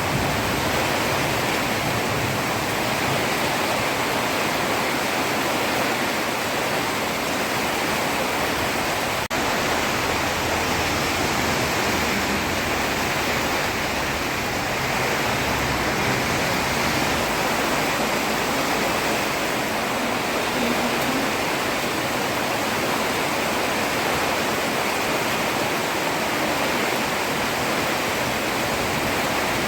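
Heavy rain falling on a road: a steady, even hiss.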